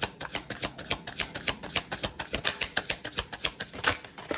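Tarot deck being shuffled by hand, a rapid, even run of papery card clicks, several a second.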